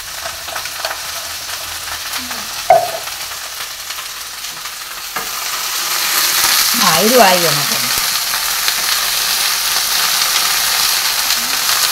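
Cauliflower pieces frying in hot oil in a kadai, sizzling steadily as a spatula stirs them. The sizzle gets clearly louder about five seconds in.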